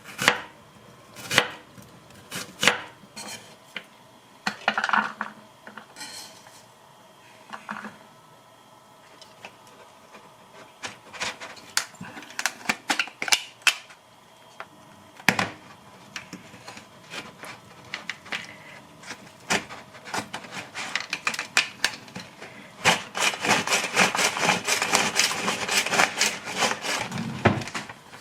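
Kitchen prep sounds: a few sharp knife chops on a cutting board at the start, then scattered clinks and scrapes of dishes and utensils, with a dense stretch of clatter near the end.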